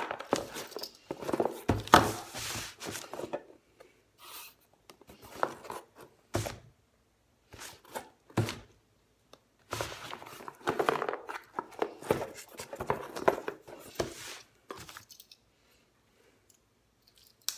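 Paper and packaging being handled, with rustling, crinkling and tearing in irregular bursts, busiest at the start and again in the middle, then going quiet near the end.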